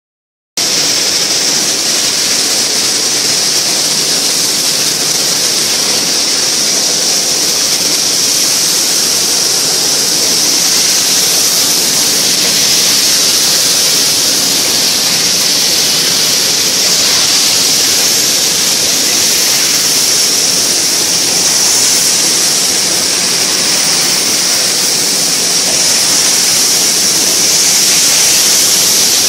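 Automatic wafer baking oven running: a loud, steady hiss with a bright, high edge and no distinct clanks or beat. It cuts in abruptly about half a second in.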